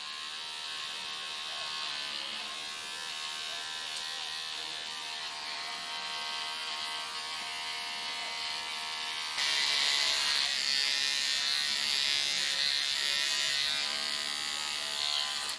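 Electric hair clippers buzzing steadily, getting louder about nine seconds in, then switched off near the end.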